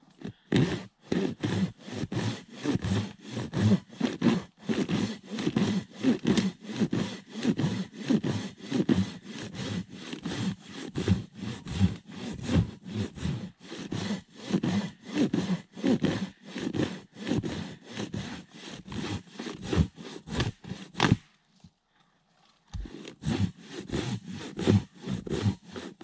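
Silky handsaw cutting through a fallen tree trunk in quick, even back-and-forth strokes. The sawing stops about 21 seconds in and starts again a couple of seconds later.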